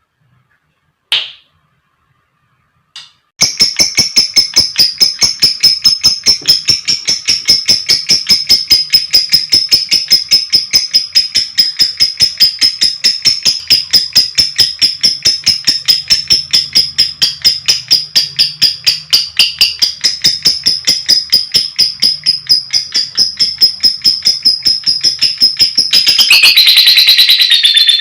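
Lovebird calling: two short single chirps, then a long, unbroken rapid chattering trill of fast repeated notes at a steady pitch, the long 'ngekek' that lovebird keepers prize. Near the end it turns into a denser, harsher chatter.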